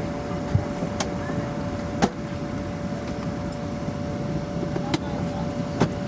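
Steady hum inside a Boeing 737-400 airliner cabin, with a steady whining tone over it and a handful of short sharp clicks scattered through.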